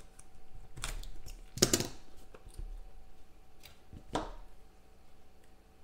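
Small cardboard trading-card box being handled and opened: a few short taps and scrapes as the seal is cut and the lid slid off, the loudest about a second and a half in.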